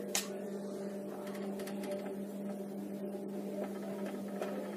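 Steady low electrical hum, with one sharp click just after the start and a few faint ticks later on.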